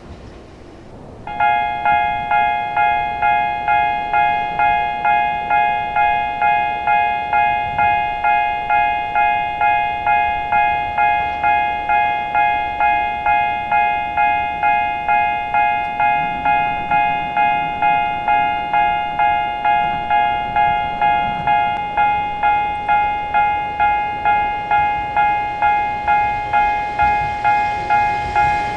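Japanese railway level-crossing warning alarm switching on about a second in and clanging steadily at about two strikes a second, signalling an approaching train.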